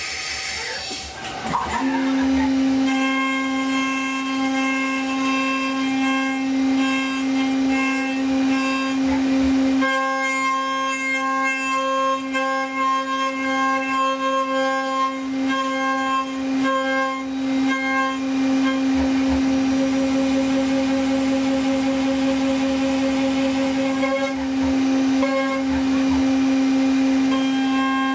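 CNC milling machine's end mill cutting an aluminium block under coolant spray: a steady, loud machining whine with a stack of overtones. The whine sets in about two seconds in, and its overtones change around ten seconds in.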